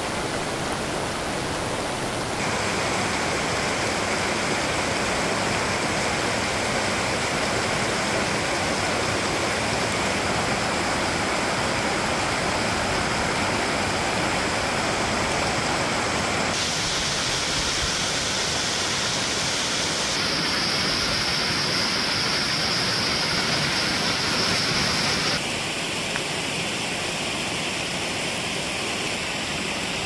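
Steady rush of a mountain stream and small waterfall pouring over rocks. Its tone changes abruptly several times as the recording cuts between spots.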